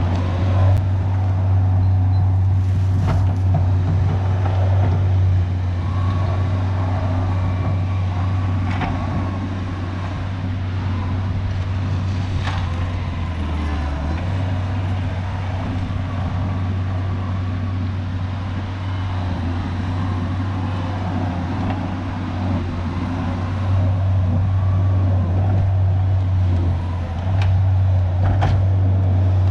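Diesel engine of a tracked earthmoving machine running steadily under load while grading gravel, with a few sharp metallic clanks.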